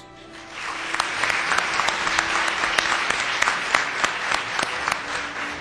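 Audience applauding, swelling in about half a second in and starting to die away near the end.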